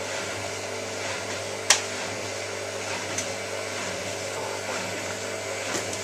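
Hotpoint 9534A washing machine running steadily with a constant motor hum, and one sharp click a little under two seconds in.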